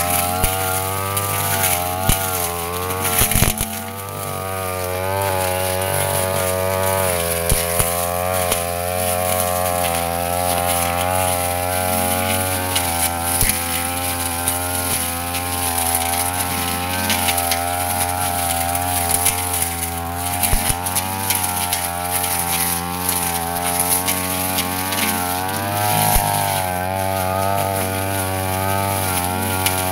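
Backpack brush cutter engine running at cutting speed, its pitch rising and falling over and over as the blade works through grass and weeds, with scattered sharp ticks.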